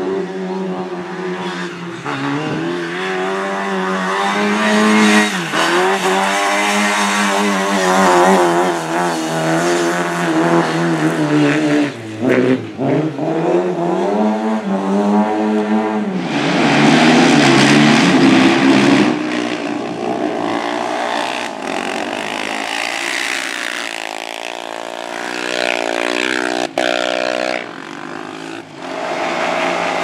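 Car engine being driven hard, revving up and falling back again and again, its pitch rising and dropping with each throttle and gear change. A louder, rougher rushing stretch comes about halfway through.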